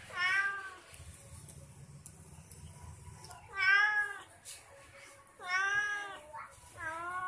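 Young domestic cat meowing four times, short arched meows with pauses between them, the last one cut off at the end.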